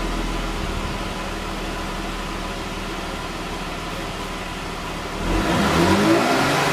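Car engine running steadily, then revved about five seconds in, its pitch rising and falling.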